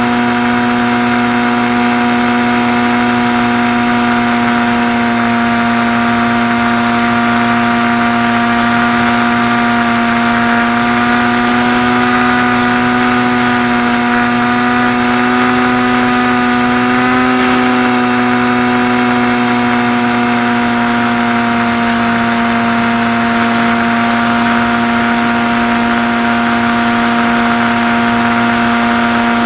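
Skywalker model airplane's motor and propeller running at a steady drone over a steady hiss. The pitch rises a little about halfway through, then settles back.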